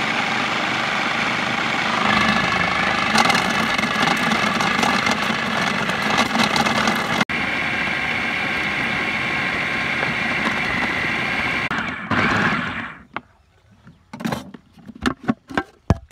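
Electric food processor running steadily, its blade mincing boiled cuttlefish pieces, then switched off about three-quarters of the way through. A few sharp clicks and knocks follow.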